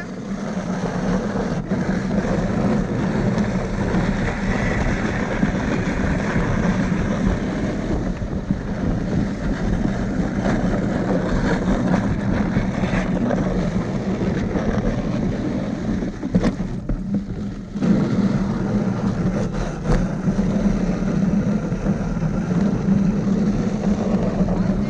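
Steady rushing rumble of a dog-drawn rig running over packed snow, with wind on the microphone; it dips briefly about seventeen seconds in.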